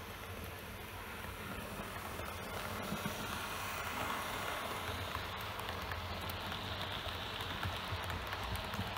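Model train (a Roco Vectron electric locomotive hauling passenger coaches) rolling along the track: a steady rushing rattle of small metal wheels on rails with light clicks, growing louder as the locomotive passes close by about four seconds in.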